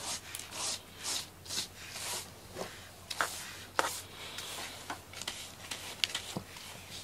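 Pet brush stroking a cat's fur: a run of short brushing swishes about two a second, then a few sharper ticks from about three seconds in.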